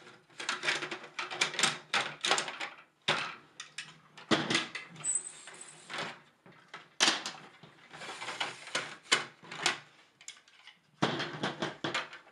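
Plastic spacers and seed beaks of a Polyplanter Jr. seeder being pushed and slid off, making clusters of clicks and clatter with short pauses between them.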